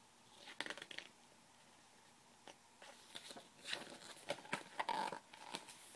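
Page of a picture book being turned by hand: soft paper rustling and crackling, a short bout about half a second in and a longer run through the middle and later part.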